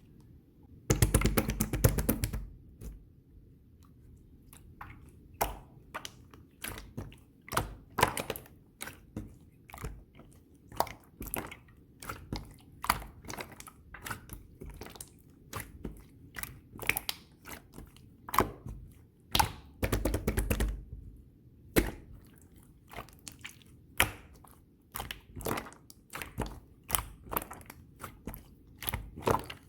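Pearl slime being pressed, poked and folded by hand, giving irregular sticky clicks and pops, with two longer, louder runs of rapid clicking, about a second in and about twenty seconds in.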